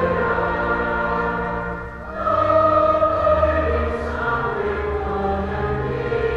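A choir singing long held chords, with a brief dip in loudness about two seconds in before the voices come back in.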